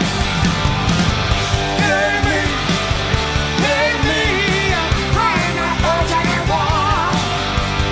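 Rock music soundtrack: a singer over guitars and drums.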